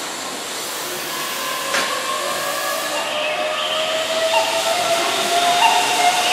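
Keihan 7200-series electric train pulling away from the platform: a steady hiss with thin motor whines that slowly rise in pitch as it accelerates, and a single click a little under two seconds in.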